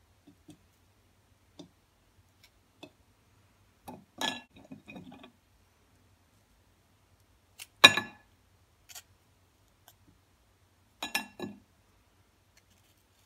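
A knife clinking against a ceramic bowl and plate while Oreo cream filling is scraped off and the cookies are handled. Three louder clinks come a few seconds apart, with light taps and clicks between.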